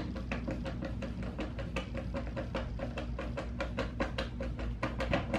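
Hand screwdriver ratcheting in quick, even clicks, about five a second, as it drives a screw that fastens a metal hinge to a particleboard cabinet door.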